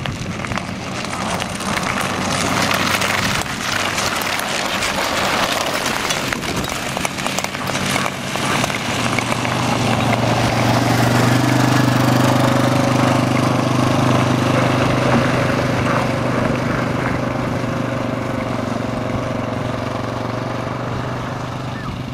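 Speed-skate blades scraping and cutting into natural lake ice as a pack of marathon skaters passes, with short scratchy strokes. From about halfway through, a quad bike's engine runs at a steady pitch, loudest shortly after it comes in and then slowly fading away.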